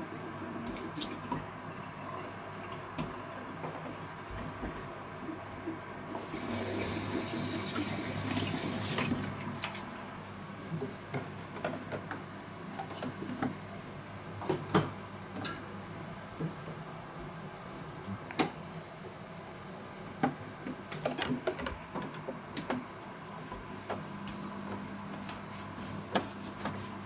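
Scattered clicks and knocks of parts and tools as a replacement part is fitted into a combination boiler, over a steady low hum. About six seconds in there is a hissing rush lasting about four seconds.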